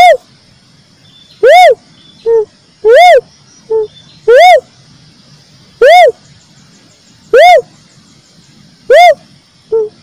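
Uncal cuckoo-dove lure call: a loud single note that rises and falls, repeated about every one and a half seconds. A few of the notes are followed by a shorter, lower note.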